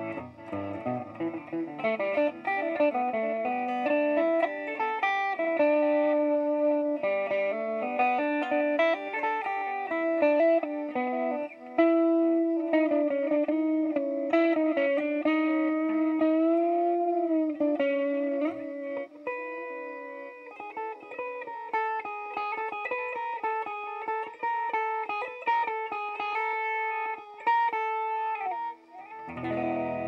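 Electric guitar played through a BOSS DD-8 Digital Delay pedal set to reverse mode, a slow melodic line with its echoes played back backwards. Around the middle a long held note bends up and back down.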